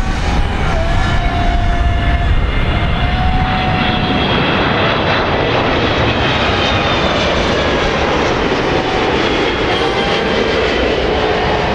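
Boeing 777-200 airliner on landing approach passing low overhead: a steady jet roar from its two turbofan engines with high whining tones that drift slightly in pitch. The roar fills out about a third of the way through as the aircraft comes closest.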